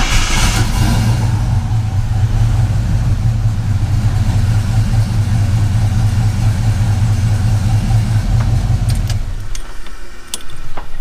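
1982 Chevy C-10 truck engine just fired up, flaring briefly at first, then idling steadily before it is shut off about nine seconds in.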